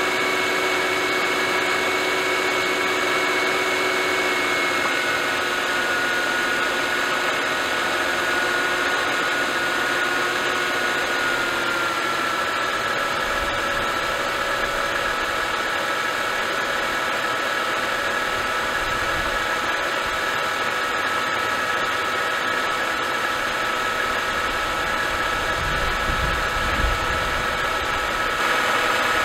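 Mercedes-Benz M272 3.5-litre V6 idling steadily, its idle pitch stepping down slightly about five and twelve seconds in. Under the idle runs the tapping noise that goes away above about 1200 rpm, the cold-start rattle typical of a leaking oil pick-up tube O-ring.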